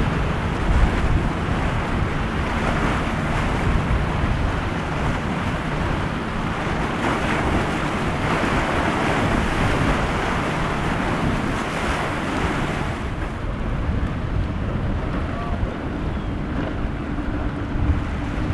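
Wind rushing on the microphone over breaking waves and churning wake, with the low, steady drone of a center-console boat's twin outboard engines running through the rough inlet. The high hiss of spray and surf drops away about two-thirds of the way through.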